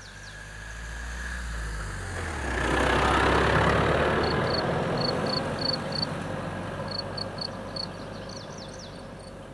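A Ford Ranger pickup driving past on a sandy forest track: engine and tyre noise swell to a peak about three seconds in, then fade slowly as it drives away. Small birds chirp repeatedly through the second half.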